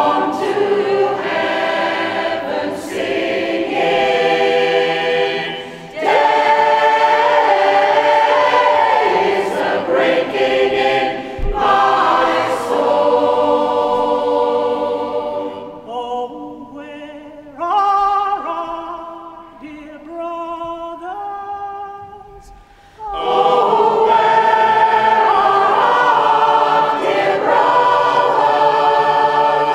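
Mixed community choir singing in harmony. Past the middle the singing thins and drops in level for several seconds, then the full choir comes back in strongly about three-quarters of the way through.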